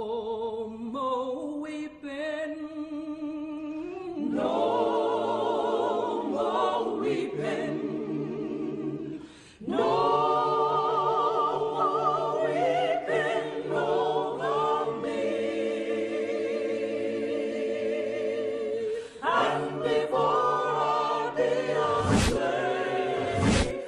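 A choir singing with vibrato, several voices held together in long notes. It drops away briefly about nine and a half seconds in, then comes back louder.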